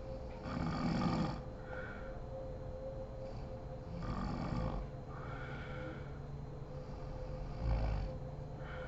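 A sleeping woman snoring: three snores about three and a half seconds apart, with softer breaths between them.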